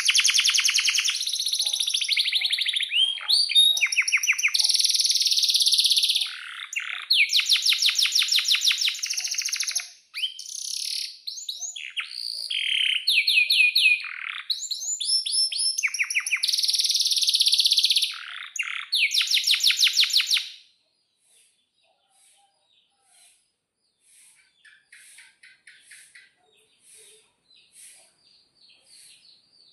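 Male domestic canary singing a long song of fast, evenly spaced trills and sweeping whistled notes. The song breaks off about two-thirds of the way through, and only faint chirping follows.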